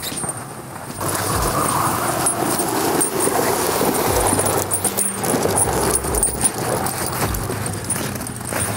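Chevrolet Colorado ZR2 pickup driving slowly over packed snow on tire chains, the chains jingling and clinking as the wheels turn over a low running engine.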